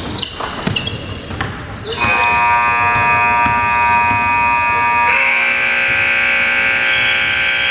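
Gym scoreboard buzzer sounds one long steady blare of about six seconds, its tone shifting about halfway through, marking the end of the game. Before it, a basketball bounces a few times on the court.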